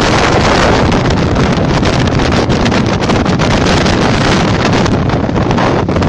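Storm-force wind blasting over the microphone in a loud, steady roar with constant gusty buffeting.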